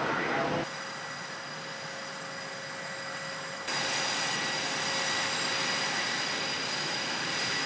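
Steady whine and rush of jet and machinery noise on an aircraft carrier's flight deck, with several constant high whining tones. It drops in level about half a second in and jumps back up a little past the middle.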